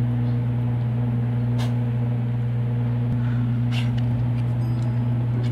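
Loud steady low electrical hum that starts suddenly, with two faint clicks, one about a second and a half in and one near four seconds.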